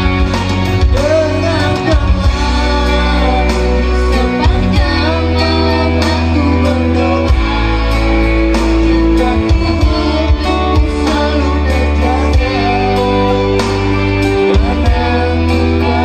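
Singing into microphones over amplified backing music with a heavy, steady bass line.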